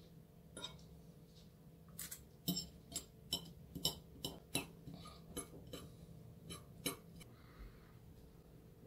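Metal fork and knife clinking and tapping on a porcelain plate as fried sole is picked off its bones: a quick, irregular run of sharp clinks that stops about seven seconds in.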